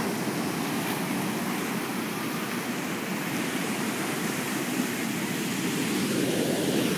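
Rough ocean surf ahead of a hurricane: waves breaking and washing up the beach as a steady rush, swelling a little near the end.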